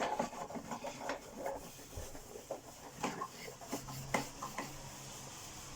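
Cloth rubbing and wiping over the underside and nozzle plate of an Electrolux 612 upright vacuum cleaner, with irregular scrapes and light knocks as the machine is handled.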